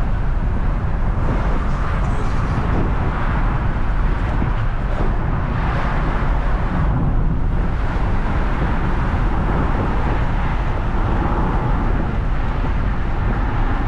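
Steady rumble of a car's road and engine noise heard from inside the moving cabin, with no gaps and a deep, even low end.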